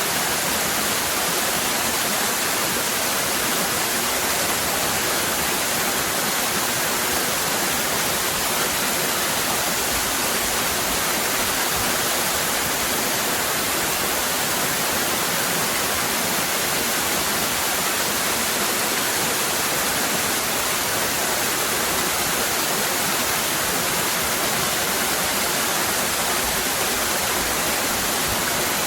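Waterfall: a steady, unchanging rush of cascading water, mostly a high hiss.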